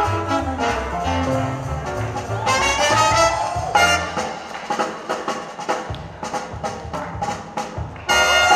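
Swing jazz with a brass section playing. A rising horn line comes about three seconds in; about four seconds in the bass drops out, leaving sparse short accents, and the full band comes back loudly near the end.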